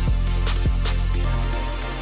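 Background electronic music with a heavy bass and sharp drum hits; the deep bass fades out near the end.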